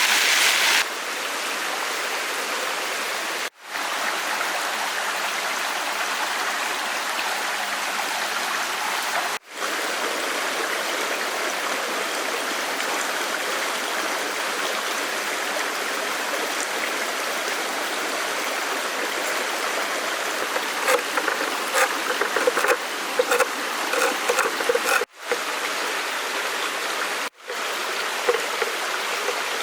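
Stream water running steadily, with several brief dropouts where the audio cuts between shots. From about two-thirds of the way in there are scattered short, light sounds over the flow.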